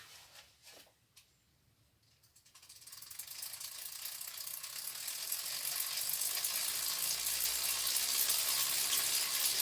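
A few faint clicks, then from about two and a half seconds in a bicycle rear hub's freewheel clicking rapidly as the wheel spins, growing steadily louder.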